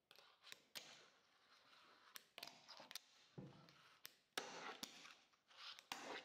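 Fingerboard rolling across a tabletop, its wheels hissing, with several sharp clacks from the board's tail popping and landing, and a dull thump about halfway through.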